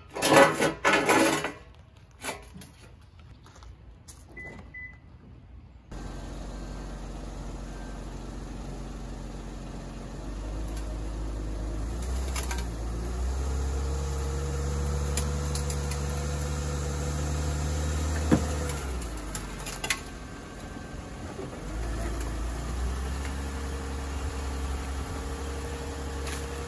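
Knocks and scrapes at the start as the car ramps are set behind the rear wheels. Then the Lexus IS250's V6 engine runs, its note climbing and holding for several seconds as the car is driven up onto the ramps. It drops back with a sharp clunk and settles to a steady idle.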